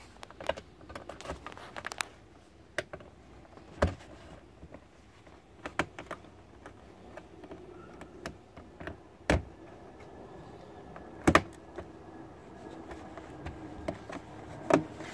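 Plastic push-in retainer clips and the plastic wheel-well splash liner being handled and pressed into place by hand: scattered small clicks and taps, with a few louder snaps spread through.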